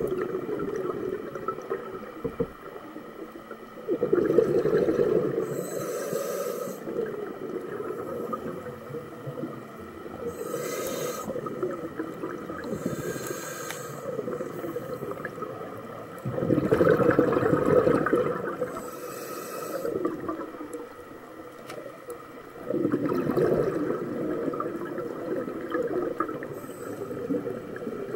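A scuba diver's regulator underwater: hissing inhalations alternating with bubbling exhalations. The exhaled bubble bursts are the loudest, coming every several seconds.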